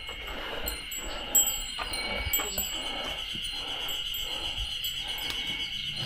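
Mountain forest ambience: a steady high-pitched insect drone with many short, very high bird chirps scattered over it.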